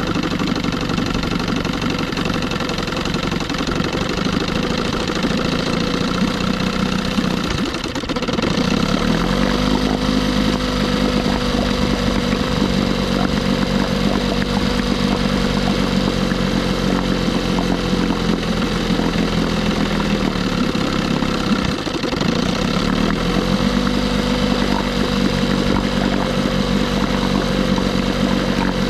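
1976 Johnson 6 hp two-stroke outboard motor running at low idle speed while its idle needle is being set. Its pitch dips and picks back up twice, about 8 seconds in and again near 22 seconds.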